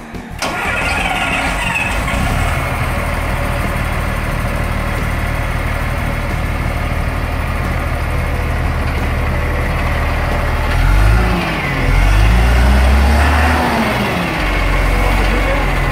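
Bucher Duro truck's diesel engine running through its new stainless-steel exhaust and silencer, idling steadily. It is revved briefly about eleven seconds in, then held at higher revs for about two seconds before settling back to idle.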